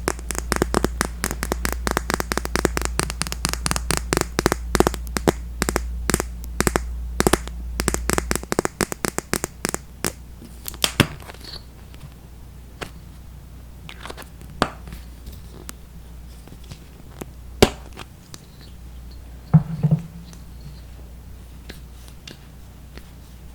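Close-miked crackling and scratching: a dense run of rapid clicks that thins out about eleven seconds in to scattered single clicks and taps, in the manner of an ASMR scalp-massage trigger on the microphone.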